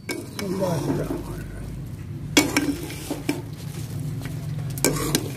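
A metal slotted spoon stirring and fluffing freshly steamed rice in a metal cooking pot, with scrapes and knocks of the spoon against the pot. The sharpest knocks come about two and a half seconds in, again a second later, and near the end.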